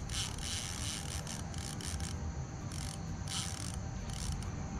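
Abu Garcia baitcasting reel working under load during a fight with a large redtail catfish (pirarara): mechanical rubbing and ratchet-like clicking in irregular short bursts, over a steady low rumble.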